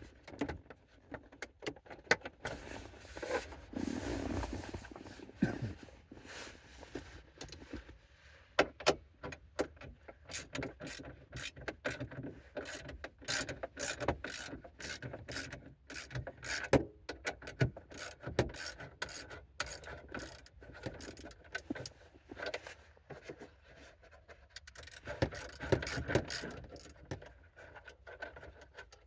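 Ratcheting hand tool clicking in short runs while screws and small bolts are backed out of a car's steering column covers, with scattered knocks of tools and plastic trim.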